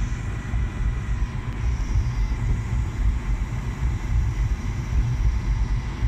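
Hoover and White Knight laundry machines running together: a steady low rumble of tumbling drums and motors, with a faint even hum above it.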